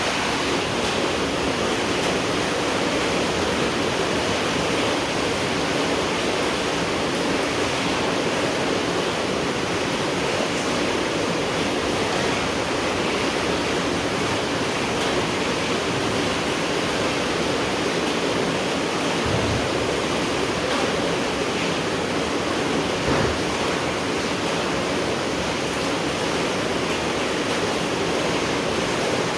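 Steady night rain falling as a dense, even hiss. Two brief low thuds come through about two-thirds of the way in.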